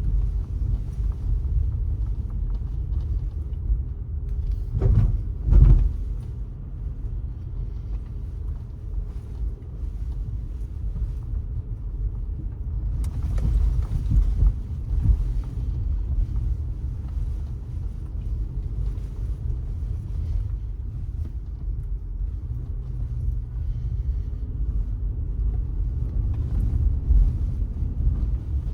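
A car driving on city streets: steady low road and engine rumble, with two short, loud thumps about five seconds in.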